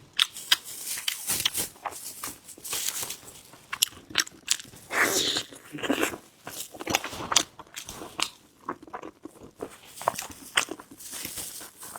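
Close-miked chewing of a sticky glutinous rice snack: irregular wet mouth clicks and smacks as it is bitten and chewed.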